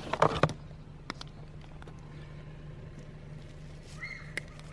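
Cutters snipping through a shop vac's power cord: a quick cluster of sharp crunching snips, then a single click about a second in.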